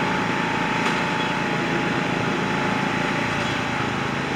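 Small engine running steadily at an even speed, without revving.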